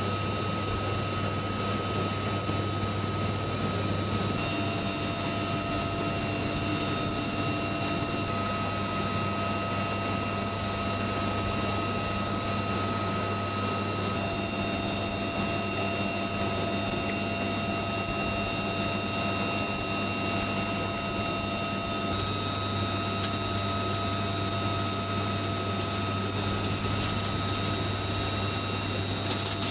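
UH-1 helicopter's turbine engines and rotor running steadily, a constant low drone under a steady high whine. Its upper tones shift slightly about four seconds in and again past twenty seconds. No gunfire.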